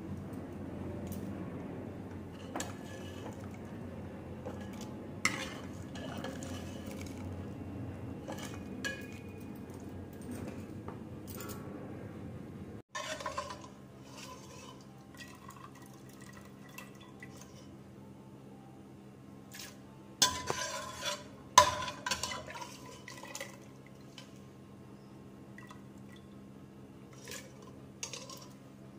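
A pot of chickpeas boiling, a steady low bubbling rush with a few small ticks. About halfway through it cuts off, and a steel ladle stirs and scoops the cooked chickpeas in their liquid, clinking and scraping against the pot, loudest in a short cluster about two thirds of the way in, with liquid pouring off the ladle.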